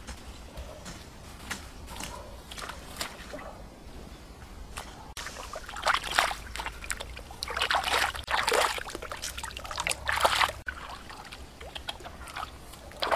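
Light scattered steps through grass, then, about five seconds in, hands sloshing and splashing in shallow muddy water for about five seconds while rinsing a large egg.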